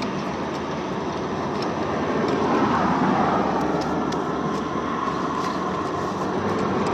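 Steady vehicle and road noise.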